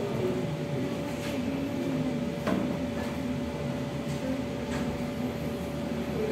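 Room noise: a steady hum with a faint high tone running through it, and a few light knocks or clicks.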